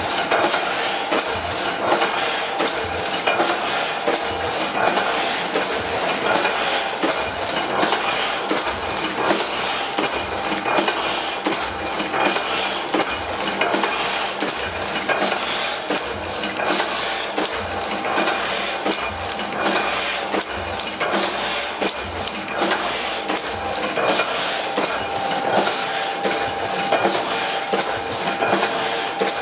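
Heidelberg Windmill platen letterpress running while printing, its gripper arms, platen and ink rollers cycling. It makes a steady metallic clatter of clicks with a regular low knock on each cycle.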